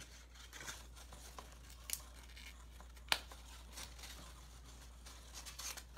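Paper crinkling and tearing as a paper-chain link is pulled off the chain and unrolled, with a few small sharp snaps, the sharpest about three seconds in.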